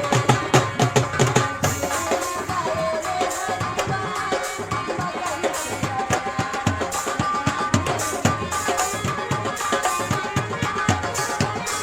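Indian folk music instrumental passage: hand drums play a fast, dense rhythm under a sustained melody line.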